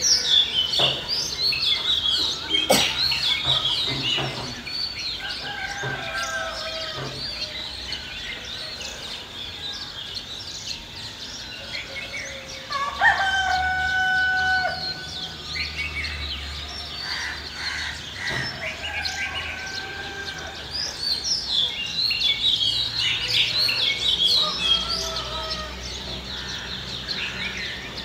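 Rooster crowing, one long held crow about halfway through and a fainter one earlier, over the constant chirping of many small birds, which is busiest at the start and near the end.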